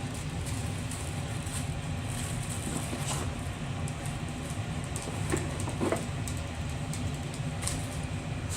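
A steady low mechanical hum with a few light ticks and taps scattered through it.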